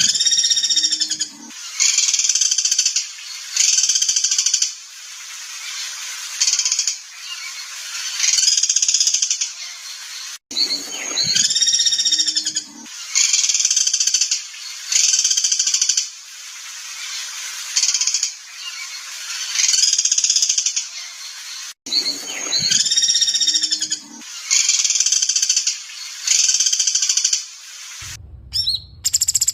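Recorded songbird song: ringing, whistled notes followed by bursts of rapid chattering, played as a loop that repeats about every 11 seconds. Near the end the loop breaks off and a different recording begins.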